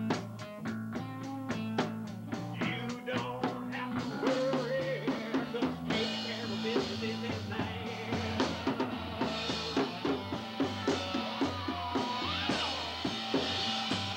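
A rock band playing live: drum kit with steady snare and kick strikes, bass and electric guitar, and a voice singing into a microphone. Cymbals come in about six seconds in.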